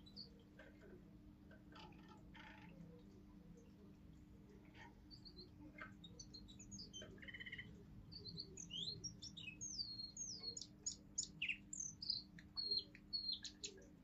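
Young male Russian song canary singing a forest-tune song: soft scattered chirps and a short trill at first, then, from about eight seconds in, a louder run of quick whistled up-and-down glides that stops shortly before the end.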